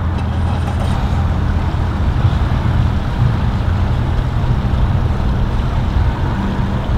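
Engine idling: a steady low rumble.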